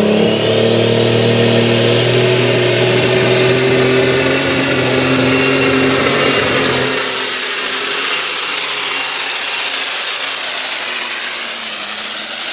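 Pulling tractor's engine at full throttle as it launches and pulls the sled down the track, with a high whine that climbs over the first few seconds and then holds. The deep engine note fades about seven seconds in as the tractor moves away.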